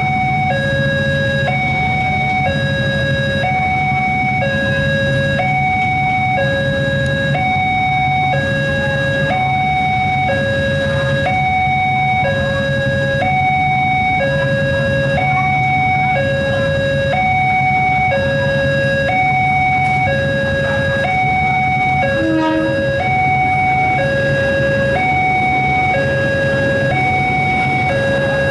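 Railway level-crossing warning alarm sounding a steady two-tone electronic ding-dong, its two pitches alternating in an even rhythm, over the low hum of idling motorcycles and cars waiting at the barrier.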